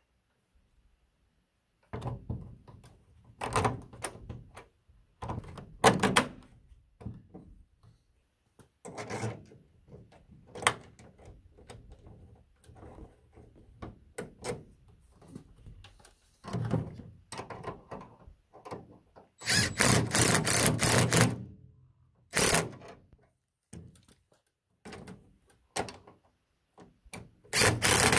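Scattered metal clunks and knocks as truck mirror-mount hardware is handled and fitted by hand. Then a cordless impact driver runs for about two seconds with rapid hammering, gives a short burst after it, and starts again near the end, driving the mount's fasteners.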